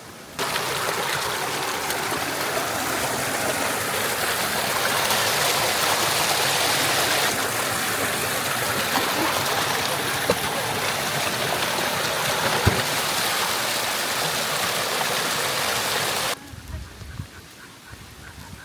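Mountain river rushing and splashing, a steady loud rush of water that starts about half a second in and cuts off abruptly near the end, leaving only quieter scattered knocks.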